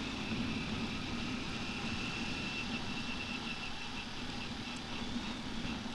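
Honda TMX125 Alpha's single-cylinder four-stroke engine running at a steady, even speed, with a faint high whine that fades out about four seconds in.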